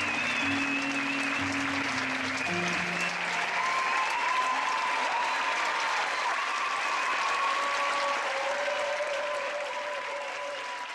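Audience applauding, with a few voices calling out over the clapping. The last low notes of the performance music stop about three seconds in, and the applause fades toward the end.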